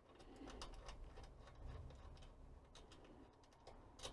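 Faint clicks and scrapes of a small nut being turned off by hand from a monitor's metal rear panel bracket, with a sharper click near the end.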